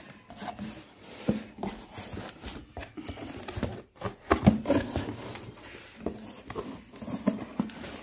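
Cardboard shipping box being opened by hand: flaps pulled back and rubbed, with irregular scraping, rustling and tapping, busiest about halfway through.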